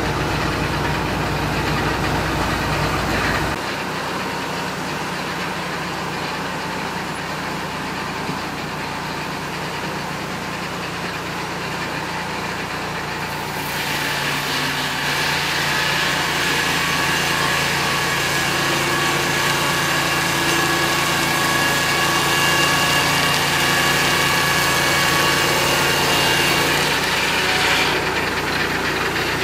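Peterson Automated Swingblade Mill running: its engine drones steadily, and from about halfway in the circular swingblade cuts through a log, adding a loud hiss with a steady high ringing that stops a couple of seconds before the end.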